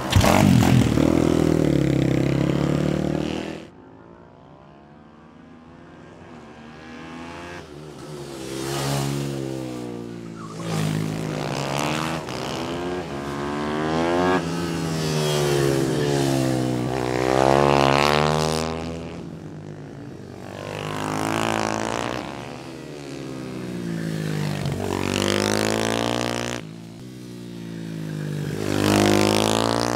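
Small racing engines on a kart track, revving up through the gears and dropping away as machines pass one after another, with repeated rises and falls in pitch. A steady engine drone fills the first few seconds and stops abruptly.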